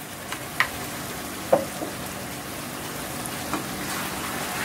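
Chicken adobo simmering and sizzling in its sauce in a frying pan while sliced onions are tipped in from a bowl and scraped off with a spatula. A few light utensil knocks against the pan, the loudest about one and a half seconds in.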